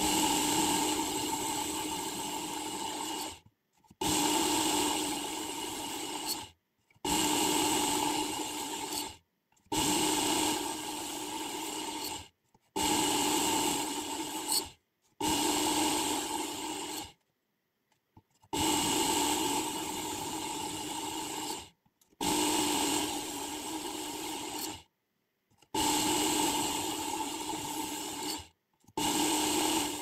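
Work Sharp Ken Onion Edition electric belt sharpener running, its abrasive belt grinding a folding knife's blade: a steady motor whine over a rasping grind. It comes in about ten runs of two to three seconds each, each cut off suddenly by a short silence.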